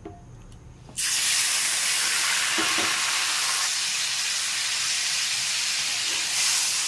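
Pieces of salted fish going into hot oil in a wok about a second in, setting off a sudden, loud, steady sizzle of frying.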